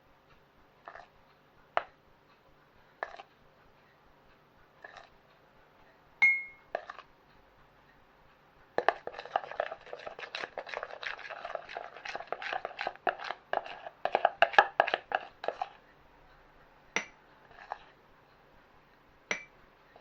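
A spoon clinking and scraping as cake batter is spooned into mugs. There are single clinks a second or two apart, then a fast run of scraping and tapping for about seven seconds in the middle, then a few more clinks.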